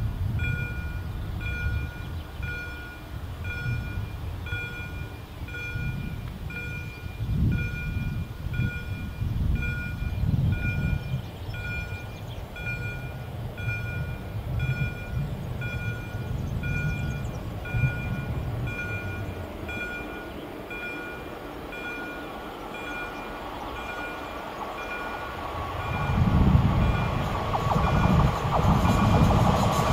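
Short electronic warning beeps repeating steadily, about once a second, over a gusty low rumble. Near the end the rumble grows louder as a PKP Cargo ET25 electric locomotive hauling freight wagons approaches.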